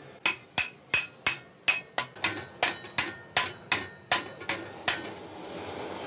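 Blacksmith's hammer striking red-hot iron on an anvil, about fourteen ringing metallic blows at roughly three a second. The blows stop near the end, leaving a steady rushing noise.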